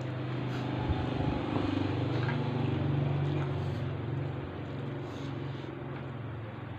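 A motor vehicle's engine running, a steady low drone that swells over the first few seconds and eases off again.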